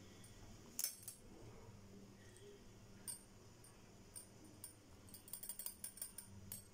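Sesame oil heating in a kadai, giving faint scattered crackles and pops that grow quicker and closer together near the end as the oil gets hotter.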